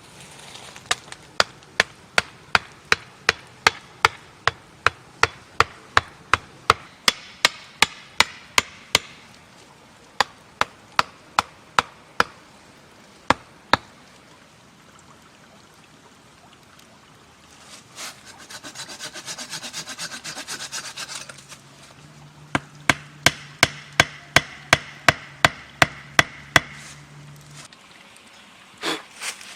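Wood being worked by hand with a tool: a long run of sharp, regular knocks, about two a second. In the middle comes a few seconds of rasping, like sawing, and then the knocking starts again.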